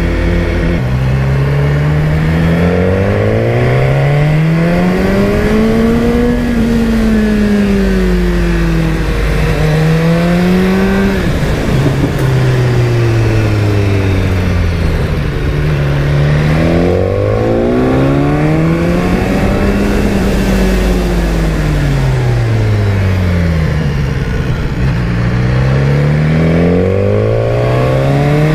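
BMW S1000R's inline-four engine pulling through a run of hairpin bends. The revs rise and fall again and again as the bike accelerates out of each bend and eases off into the next.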